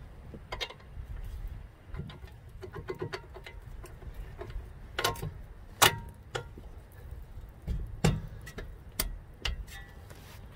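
Irregular metallic clicks and clinks as steel bolts are handled and pushed through the steering knuckle and the bottom bracket of the strut assembly. The sharpest clink comes a little past the middle.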